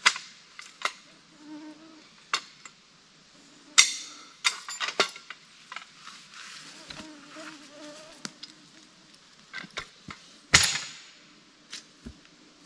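Scattered sharp knocks and clatters, loudest about four and ten and a half seconds in, over a faint steady buzz.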